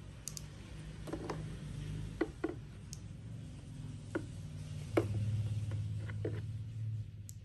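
Small scattered clicks and light rustling of thin battery lead wires handled by hand, about ten ticks as stripped ends are twisted together into a splice. A low steady hum runs underneath and grows louder for about two seconds near the end.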